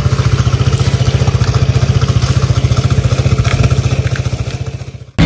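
Small scooter engine idling with a steady, rapid low pulse, fading out near the end.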